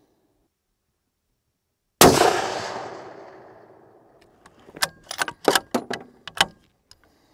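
A Tikka T3x Tac A1 bolt-action rifle in 6.5 Creedmoor fires one shot about two seconds in, its report fading over about two seconds. Then, a couple of seconds later, the bolt is worked for the next shot: a quick series of sharp metallic clicks and clacks.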